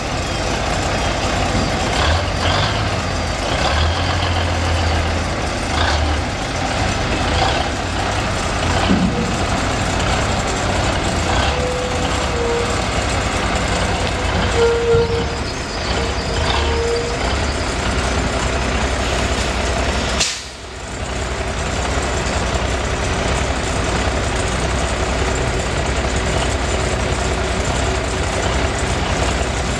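Tandem-axle dump truck's diesel engine running steadily while the raised dump body is lowered on its hoist, with a faint whine through the middle. A single sharp click or hiss comes about two-thirds of the way through.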